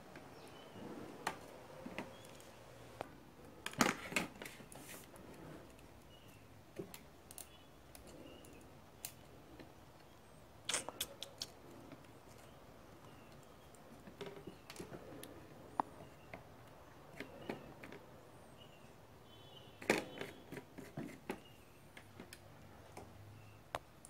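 Faint, scattered clicks and taps from a soldering iron and small parts being worked on a washing-machine control circuit board while a small switch is desoldered, with three denser bunches of clicks about 4, 11 and 20 seconds in.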